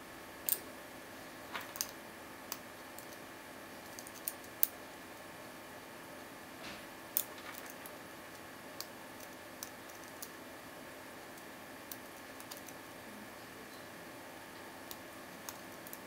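Small, sharp metallic clicks at irregular intervals from a lock pick and tension wrench working the five-pin cylinder of a Vachette Ajax 40 mm padlock, which has anti-picking security pins. The pick tip taps and lifts the pins in the keyway, with the loudest clicks about half a second in, around four seconds in and about seven seconds in.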